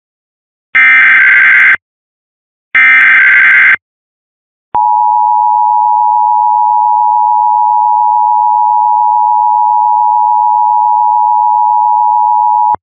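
Emergency Alert System SAME header: two one-second buzzy data bursts a second apart, then the EAS two-tone attention signal held steady for about eight seconds. The tones open an emergency alert, here a tornado warning relayed by cable TV.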